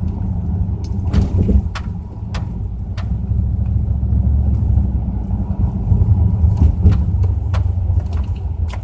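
Pontiac Grand Prix GXP with its 5.3 L LS4 V8 being driven: a steady low rumble of engine and road, with scattered sharp clicks.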